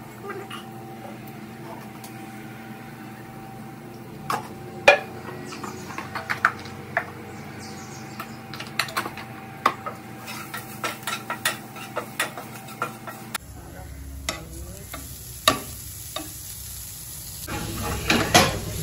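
Wooden spatula stirring and scraping paneer stuffing in a frying pan on a gas stove, with scattered taps against the pan and a light sizzle. A cluster of louder knocks comes near the end.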